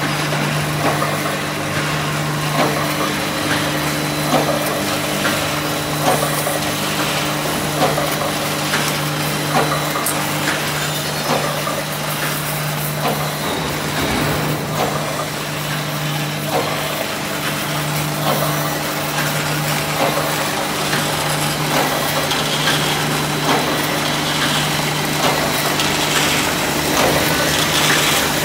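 Automatic roll-type welded wire mesh machine running: a steady electrical hum with a short clack repeating about every one and a half to two seconds as it cycles.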